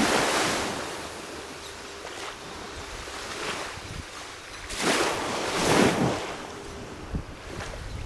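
Small waves washing up onto a sandy beach, with a louder wash right at the start and two more around five and six seconds in.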